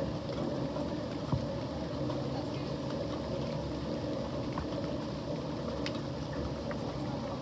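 Steady hum of a running motor, with a few faint short clicks.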